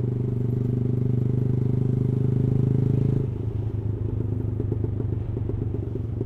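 Yamaha R15 V3's single-cylinder engine, fitted with an aftermarket exhaust, running steadily under throttle while riding. About three seconds in the throttle is rolled off, and the engine note drops and turns uneven.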